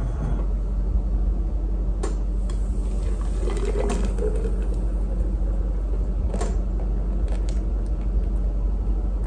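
Thick eggnog custard poured from a stainless steel saucepan into a glass pitcher, a soft pour over a steady low hum, with a few faint clicks.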